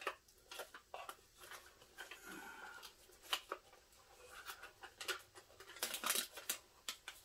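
Hands repacking a small white cardboard watch box: the lid scrapes and taps on as it is pressed shut, and then the box is slipped into a clear plastic bag. A run of soft scrapes and light taps, with a quick flurry of plastic crinkling about six seconds in.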